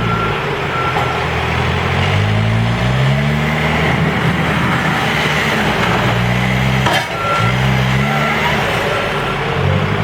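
Case 590 Super N backhoe's diesel engine revving up and settling again as the loader works, rising in pitch twice, with a reversing alarm beeping a few times near the start and again in the second half. A single sharp click comes about seven seconds in.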